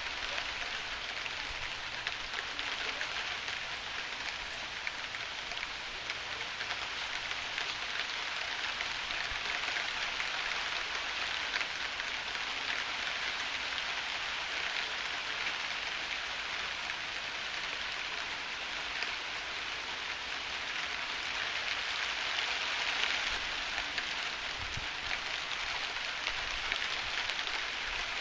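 Heavy rain falling steadily, a dense patter of drops on surfaces.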